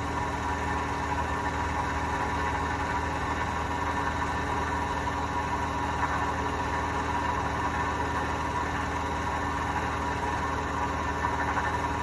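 Hotpoint washing machine running with a steady low rumble and a steady whine, the noise of worn drum bearings.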